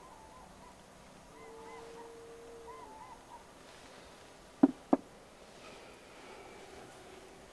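Quiet film soundtrack ambience with a faint held tone early on, then two sharp knocks about a third of a second apart a little past the middle.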